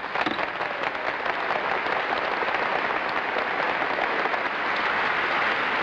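A large crowd applauding, many hands clapping together in a dense, steady patter.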